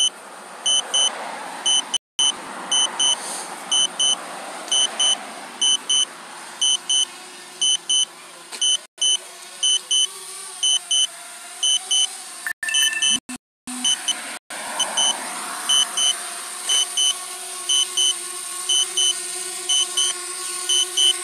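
Electronic beeper sounding short double beeps, a pair about every second, evenly and without pause, over a faint steady hum. The sound cuts out completely for a moment several times.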